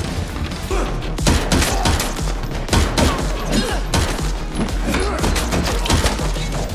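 Film gunfight: rapid pistol shots, many in quick succession, starting about a second in, over a steady low rumble.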